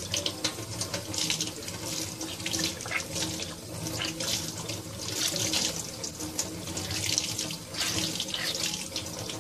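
Kitchen faucet running onto a hand squeezing a wet makeup sponge, water splashing into a stainless-steel sink; the splashing swells and fades several times.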